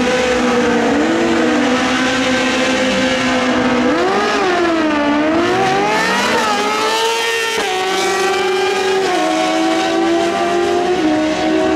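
Two drag-racing sport-bike engines revving on the starting line, then launching and accelerating hard down the strip, the pitch climbing and falling with each gear change.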